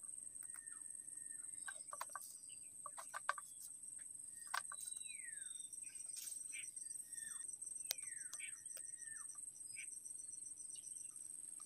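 Faint outdoor ambience: insects buzzing at a steady high pitch, with short bird calls scattered throughout, several of them falling in pitch. A few sharp clicks, the loudest sounds, come about three, four and a half and eight seconds in, as a stick and string snare is handled.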